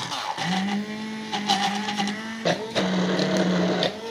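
Electric stick blender running in pulses, its motor hum stopping and spinning back up at the start and again at the end, with a brief falter in the middle. It is chopping fresh coriander, mint, green chillies and onion with a little water in a plastic jug.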